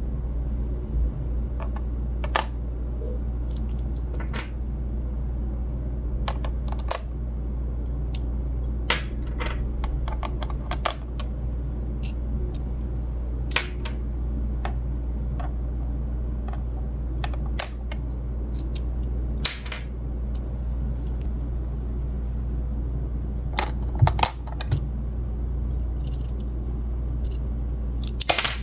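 Small hard plastic toy pieces clicking and tapping as they are handled: scattered single clicks and short clusters, the sharpest near the end, over a steady low hum.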